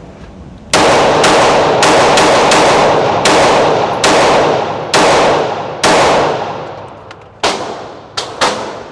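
Glock 43X 9mm pistol with its stock trigger fired about a dozen times in an uneven string, some shots coming in quick pairs. Each shot rings on with a long echo of an indoor range.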